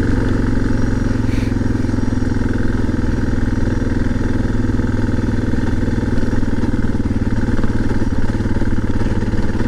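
Suzuki DR650's single-cylinder engine running at a steady, even pitch as the motorcycle is ridden at an unhurried pace, without revving.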